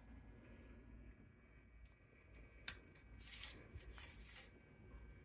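Faint handling sounds over a low hum: one sharp click a little under three seconds in, then two short scraping rustles about half a second apart.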